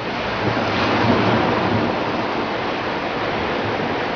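Steady, loud rushing noise with a flickering low rumble, typical of wind buffeting an outdoor microphone.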